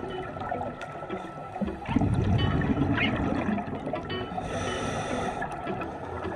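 Scuba diver exhaling through a regulator underwater: a bubbly rush of air, loudest from about two seconds in until about four, with a few sharp clicks.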